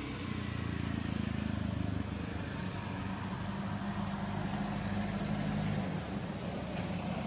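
A low engine drone running steadily, swelling and shifting slightly in pitch, with a thin high steady tone above it.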